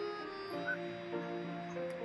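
Quiet background music: sustained notes that step to new pitches every half second or so.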